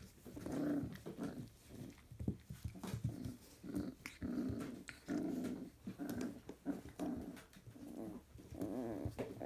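Four-week-old Labrador retriever puppies play-fighting and giving a string of short growls, about one a second, as they wrestle and bite at each other.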